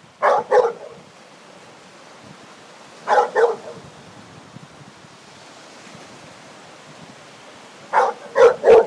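A dog barking in short groups: two barks, two more about three seconds later, then three quick barks near the end.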